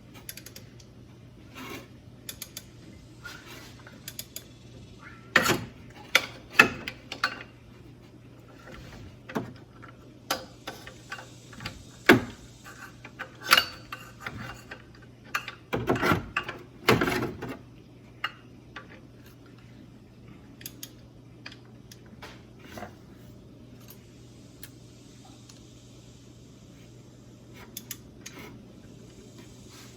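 Metal hand tools and engine parts clinking and clicking during work under the hood, in scattered sharp taps with busier clusters about five to seven seconds in and again around twelve to seventeen seconds in. A steady low hum runs underneath.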